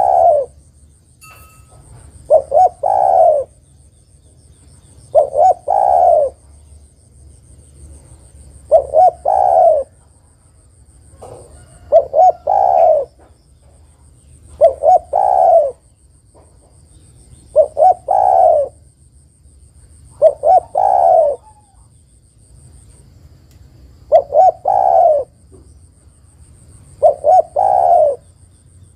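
Spotted dove (tekukur) cooing: about ten repeated phrases, one roughly every three seconds, each a couple of quick short coos followed by a longer, fuller coo. The uploader presents it as a female calling to a male.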